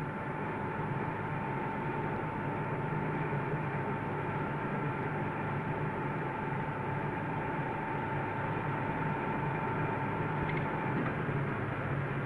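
A tapping machine spindle running steadily as a tap cuts a thread under cutting fluid: a low hum with a thin steady whine over it, the whine stopping about eleven seconds in.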